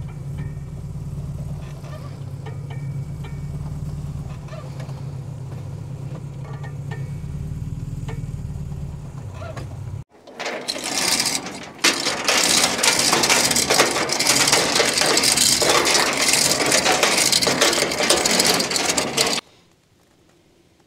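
A vehicle engine idling with a steady low hum and a few light clicks. About ten seconds in, this cuts off and a loud, steady hiss takes over, then stops abruptly near the end.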